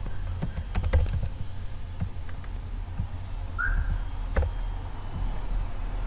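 Computer keyboard keys clicking in a few short runs of keystrokes, with a sharper click about a second in and another past the four-second mark, over a steady low hum. There is a brief high chirp a little past halfway.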